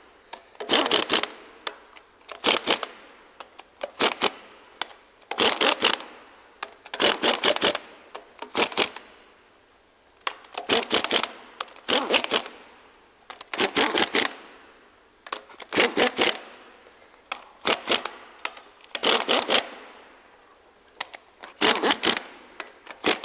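Impact gun hammering cylinder head bolts down in short bursts, one every second or two, each burst trailing off as the tool spins down. It is set to its lowest setting for the first rundown, about 75 to 80 foot-pounds, before the bolts are torqued by hand.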